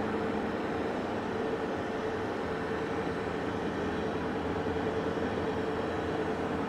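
Steady road and engine noise of a moving vehicle heard from inside the cab while driving, an even drone with a constant hum running through it.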